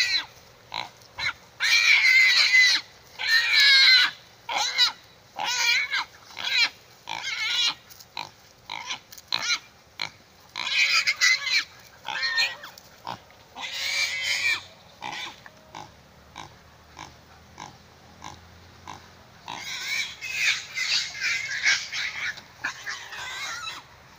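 Pig squealing in distress while two dogs bite and hold it down: high-pitched shrieks over and over, some long cries of a second or two between many short squeals.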